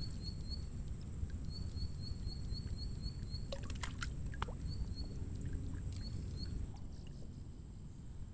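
Low, steady sloshing of lake water at the angler's position. Over it, a small bird chirps in quick runs of short high notes, and a few sharp clicks come about three and a half to four and a half seconds in.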